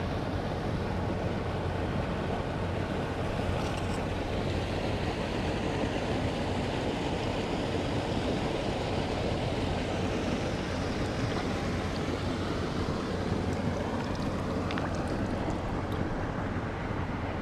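Steady rushing noise of wind buffeting the microphone, heaviest in the low end, with no distinct splashes or knocks.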